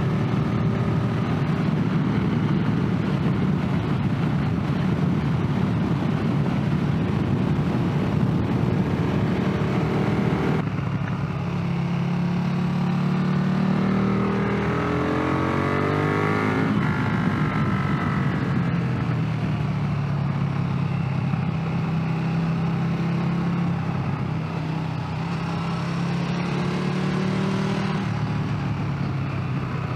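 Motorcycle engine running while riding, with wind rush over it. About ten seconds in the wind noise drops, and a few seconds later the engine note climbs as the bike accelerates before settling back to a steady run.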